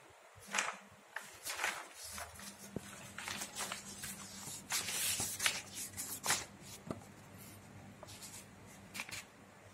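Paper pages of a thick book being leafed through by hand: a run of quick, irregular rustles and swishes, thinning out near the end.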